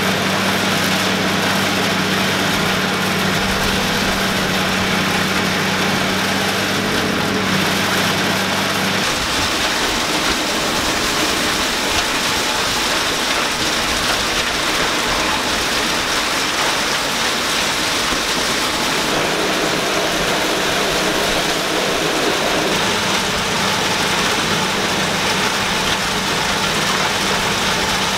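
Allis-Chalmers D-17 tractor engines idling steadily, then about nine seconds in a switch to the dense, even hiss of a New Holland 28 silage blower running as chopped corn silage pours into it off a forage wagon, with an engine running beneath.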